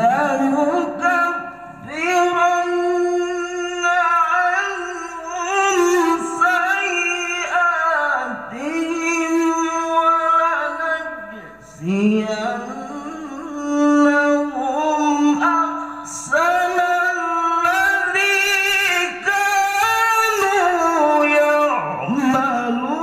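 A man reciting the Qur'an in the melodic, drawn-out tilawah style, singing long ornamented phrases with sliding pitch into a microphone. His voice comes in abruptly after a breath pause, with only brief breaks between phrases.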